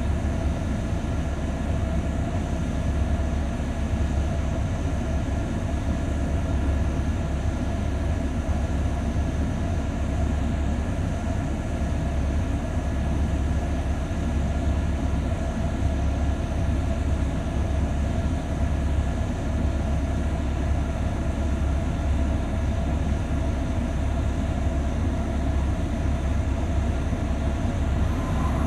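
Heavy vehicle's engine running steadily: a low drone with a few steady tones above it, unchanging in level throughout.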